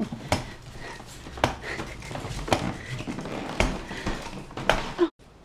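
Irregular light taps and knocks over soft rustling, with a brief short tone just after five seconds, after which the sound cuts off suddenly.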